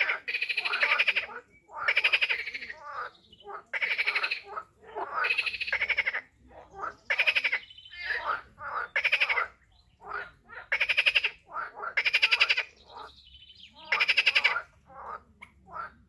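Frogs calling, a steady series of croaks. Each call is a rapid run of pulses lasting about half a second to a second, and the calls come every second or so, sometimes overlapping.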